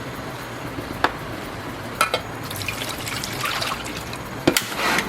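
Water splashing and trickling, with a few sharp knocks about a second in, around two seconds in, and twice in quick succession near the end.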